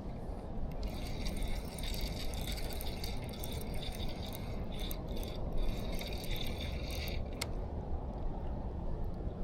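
Fishing reel being cranked for about six seconds, a steady mechanical whirring that stops abruptly and is followed by a single click. A steady low rumble lies underneath throughout.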